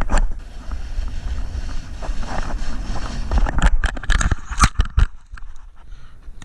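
Wind buffeting the microphone in a steady low rumble, with a quick run of sharp scrapes and clicks about three and a half to five seconds in.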